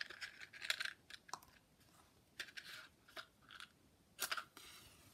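A match struck against a matchbox: several short scrapes, the loudest about four seconds in.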